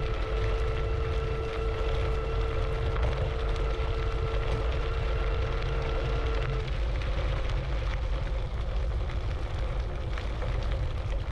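IO HAWK Legend e-scooter's 500-watt geared motor whining steadily under power, over a heavy low rumble; the whine cuts off about two-thirds of the way through.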